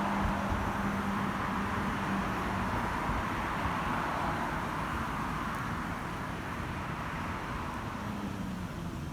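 City street traffic: a steady rush of passing vehicles, slowly fading. A low steady hum sits under it for the first few seconds and returns near the end.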